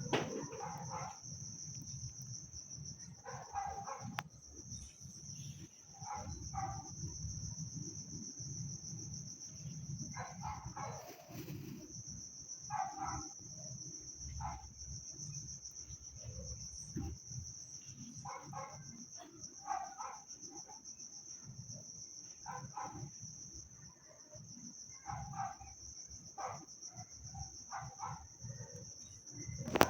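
Insects chirping in a steady high trill, with short animal calls repeating every couple of seconds.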